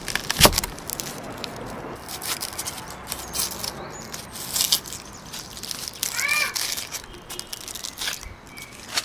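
A large cleaver splits a whole onion and strikes the wooden chopping block with one sharp knock, then dry onion skin crackles and rustles as it is peeled off by hand.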